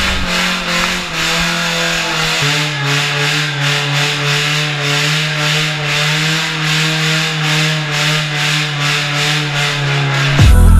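Car engine held at high revs during a burnout, with the spinning tyres hissing and scrubbing on wet concrete. The engine note drops a step about two and a half seconds in, then holds steady with a faint pulsing.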